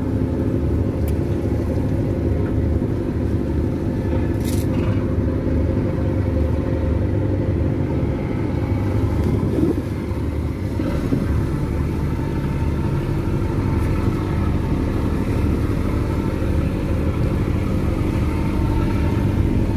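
Tugboat's marine diesel engine running steadily under load as it tows an empty barge slowly away from the jetty: a low, even rumble.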